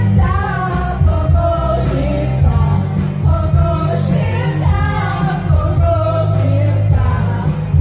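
Women singing karaoke into microphones over a loud backing track with a heavy bass line, the voices amplified through the room's speakers.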